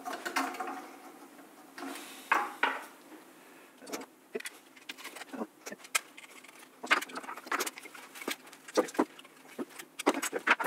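Irregular light clicks and taps of small metal hardware being handled: threaded hex spacers and screws fitted to an amplifier kit's circuit board. The clicks come thicker in the second half.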